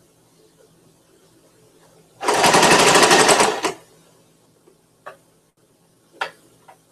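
Electric home sewing machine running in one fast burst of stitching for about a second and a half, then stopping; a few light clicks and knocks of handling follow.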